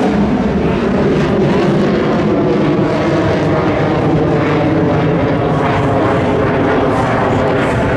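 Military jet aircraft flying overhead: loud, steady engine noise with no breaks.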